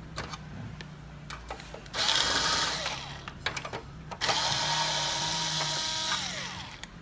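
Cordless electric screwdriver running in two bursts of a second or two each, backing screws out of a copier's gear-drive assembly. The motor's whine drops off as the second burst ends, and light clicks of handling fall between the bursts.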